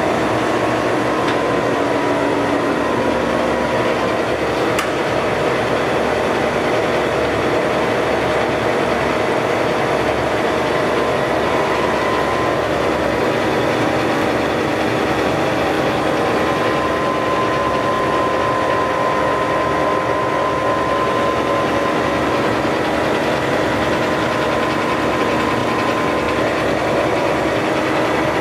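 Blanchard 32D-60 vertical rotary surface grinder running: its 100 HP spindle drive and rotating table make a loud, steady mechanical hum with a few held tones over it. There is no grinding load.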